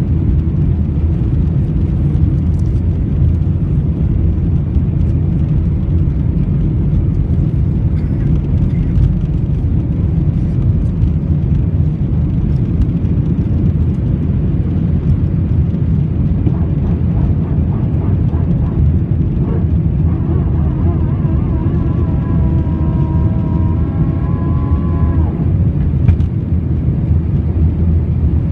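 Airbus A319 jet engines at takeoff thrust, heard from inside the cabin over the wing: a loud, steady low rumble through the takeoff roll and liftoff.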